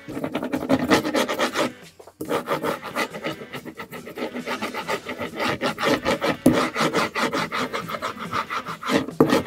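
A brayer rolling ink back and forth over a carved woodcut block: a dense, rapid crackle of tacky ink with each stroke. The rolling stops briefly about two seconds in.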